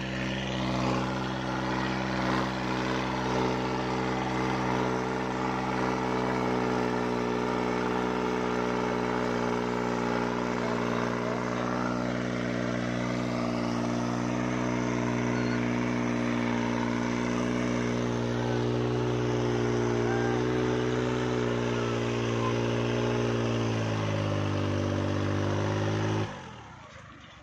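New Holland 3630 tractor's three-cylinder diesel engine running steadily under load while pulling a disc harrow through dry soil. Its pitch drops a little near the end, and then the sound cuts off suddenly.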